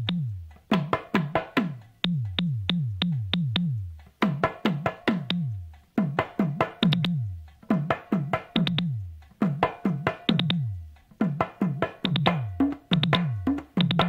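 Instrumental break of a Tamil film song: quick rhythmic runs of drum strokes, each stroke sliding down in pitch, with short gaps between the runs and a faint held tone above.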